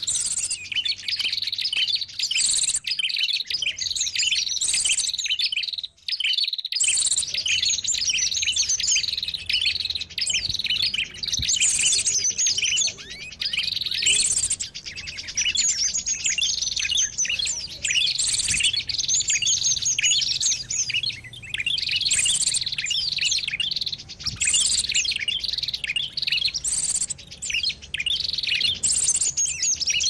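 Bird-luring recording of many small songbirds chirping and twittering over one another, high-pitched and continuous, with a brief break about six seconds in.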